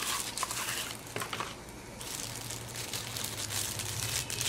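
Clear plastic wrapping crinkling and rustling as it is handled, in a run of small crackles.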